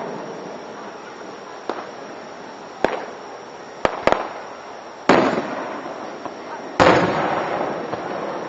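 Aerial fireworks shells bursting: six sharp bangs, the last two about five and seven seconds in the loudest, each trailing off in a long rolling echo.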